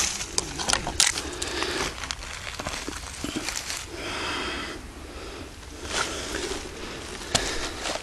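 Rustling and crackling of moss, leaves and undergrowth, with scattered clicks of handling, as a porcini mushroom is picked from the forest floor and put into a basket.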